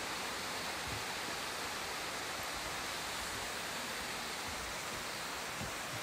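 Steady rush of falling water from a mountain stream, an even hiss that does not change.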